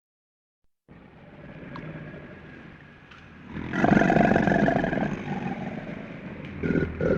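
A large animal's rough, pulsing call, loud from about halfway in, with a second call starting near the end, after about a second of silence at the start.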